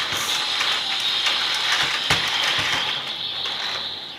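Plastic toy transformation belt's crank lever being turned, ratcheting clicks over a steady hiss, the belt's standby sound before its transformation call.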